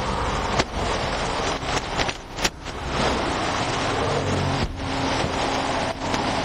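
Steady traffic noise from a busy interstate, with a few sharp knocks and clicks; the sharpest comes about two and a half seconds in.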